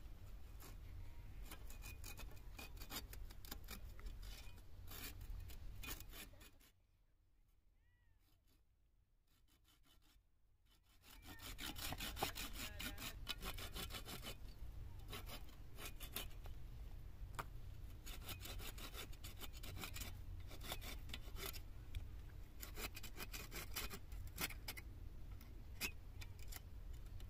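Small hand saw cutting thin wooden branches in quick, uneven strokes, with a break of a few seconds about seven seconds in. A steady low rumble runs underneath.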